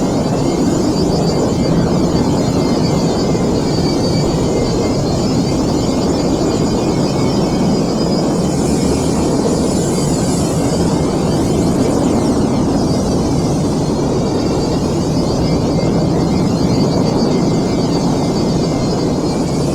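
Exterior engine sound effect of the Star Wars A/SF-01 B-wing starfighter, running as a steady loop: a continuous low engine noise with thin high tones above it that slowly waver.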